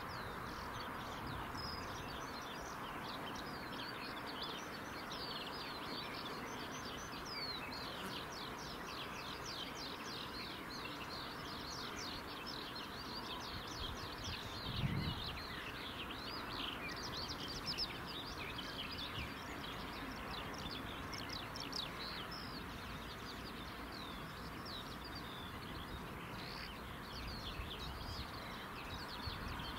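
Many birds chirping and singing in spring countryside over a steady background hiss. There is a single low thump about halfway through.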